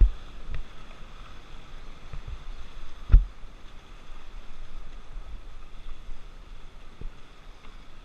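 Rushing river water and wind on the microphone of a camera riding on an inflatable raft, a steady noise with a low rumble. A few short low thumps break in, the loudest about three seconds in.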